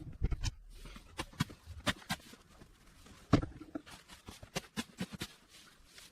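A series of irregular sharp knocks and clicks, a few to the second, the loudest about three and a half seconds in.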